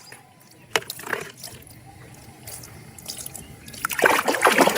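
Tap water running and splashing over a plastic toy animal being rinsed clean of mud, starting strongly about four seconds in after a quieter stretch with a couple of light clicks.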